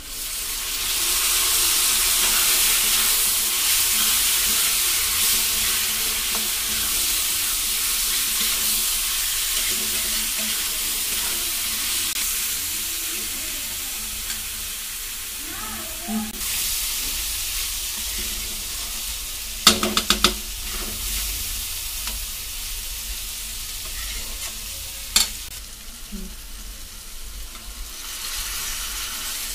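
Sem beans and potato pieces frying in oil in a kadhai. A wet paste poured onto the hot spices sets off a loud sizzle that slowly dies down while the mix is stirred, with a few sharp clicks about twenty seconds in. The sizzle picks up again near the end as chopped tomato goes in.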